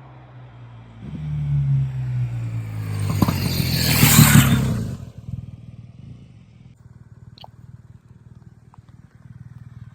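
BMW R1200GS liquid-cooled boxer-twin motorcycle riding past. Its engine note builds from about a second in, is loudest around four seconds in, then drops in pitch and fades to a low rumble.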